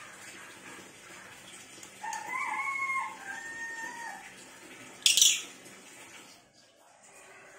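Birds calling: a two-part call of about two seconds, held then stepping lower, like a rooster's crow, and about a second later a very short, sharp, high-pitched call, the loudest sound.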